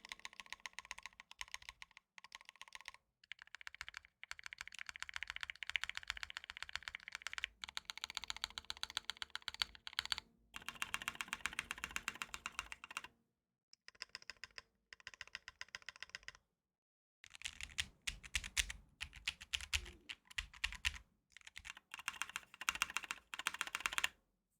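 Fast typing on a Matrix ME SE mechanical keyboard with lubed NovelKeys Cream linear switches in an aluminium flex plate with plate and case foam: dense runs of keystroke clacks, broken by short pauses every few seconds.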